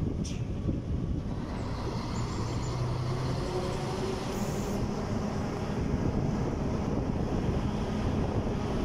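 Steady engine and road noise of a moving vehicle heard from on board, with a low hum. A short hiss comes about halfway through.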